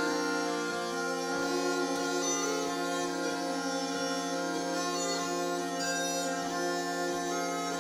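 Smallpipes and piano accordion playing a tune together over a steady low drone.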